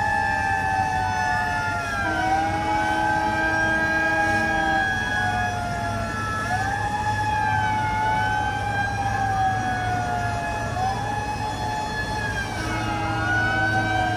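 Several emergency vehicle sirens wailing at once, their slowly rising and falling tones overlapping out of step, over a steady low hum.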